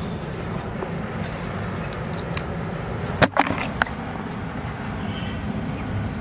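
A catfish dropped into a black plastic tub, slapping against its wet bottom and sides three or four times in quick succession about three seconds in, over a steady background hiss.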